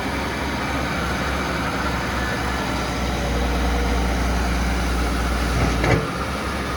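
Hitachi ZX240 excavator's diesel engine running steadily with a deep rumble. About six seconds in there is a short sharp knock, and the low rumble falls away.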